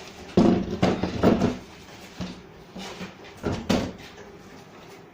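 The removed body cover of a sewing machine being fitted back onto the machine: a cluster of knocks and clunks in the first second and a half, then a few more about two to four seconds in.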